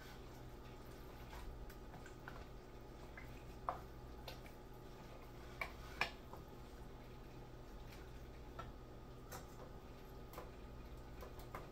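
Wooden spoon stirring pasta in a stainless steel saucepan, the spoon giving faint scattered ticks and knocks against the pan, a few sharper ones near the middle, over a low steady hum.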